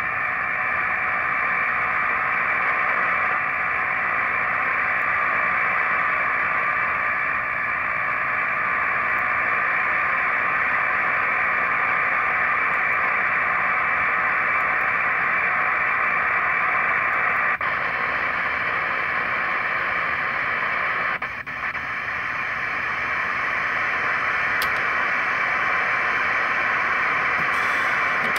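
Steady receiver static from a LimeSDR software-defined radio tuned to the shortwave bands, a band-limited hiss with no signal coming through. It drops briefly about three-quarters of the way through, as the receiver is retuned.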